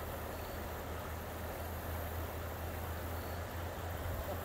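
Steady rush of river water running over shallow rocky riffles, with a constant low rumble underneath.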